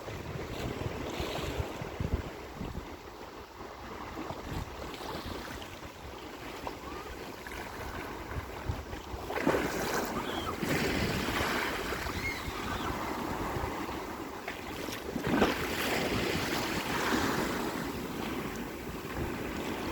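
Sea waves washing, with wind buffeting the microphone; it grows louder about halfway through.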